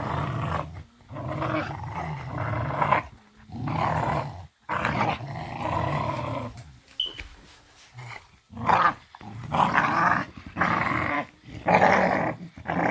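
Young dogs, a bully pup and a pit bull pup, growling in repeated rough bouts of a second or two with short breaks as they tug at a rope.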